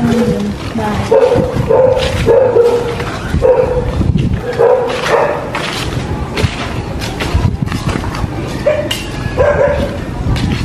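A dog barking repeatedly, in short barks at an uneven pace.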